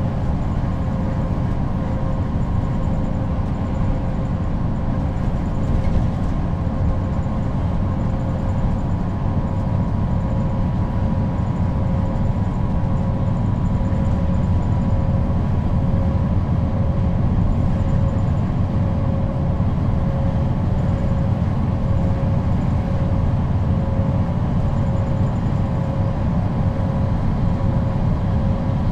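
Neoplan N 4016 city bus heard from inside the passenger cabin, cruising at steady motorway speed: an even engine rumble with a steady whine from its ZF automatic gearbox, which the recording's title calls extreme.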